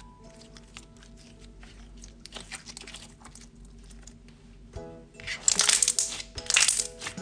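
Thick slime being squeezed and stretched by hand, giving off crackly clicks and small pops, with a louder burst of crackling for a couple of seconds near the end. Background music plays under it.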